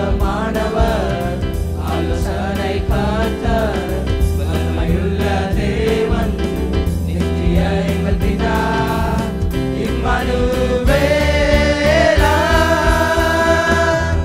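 A male youth choir sings a Tamil Christmas carol in harmony into microphones, over amplified instrumental backing with a steady beat. Near the end the voices hold long sustained notes.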